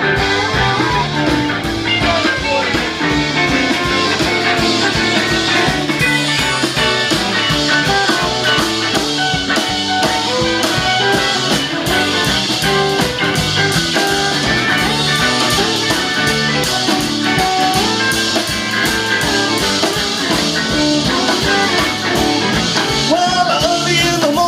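A live rock-and-roll band playing amplified electric guitars, bass and a drum kit through PA speakers, with a steady driving beat.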